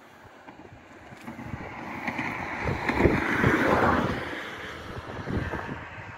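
Wind buffeting the microphone in gusts, with a rushing noise that swells about two seconds in, peaks around three to four seconds, then dies away.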